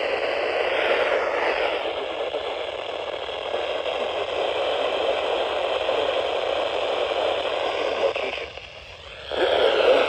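Static hiss from a Midland NOAA weather radio's speaker, tuned to a weather band channel with no clear voice coming through. The hiss drops away for under a second near the end, then returns.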